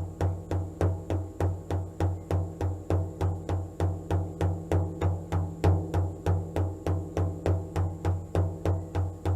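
A drum beaten in a steady, even rhythm of about three strokes a second, each stroke a low boom with a short ring.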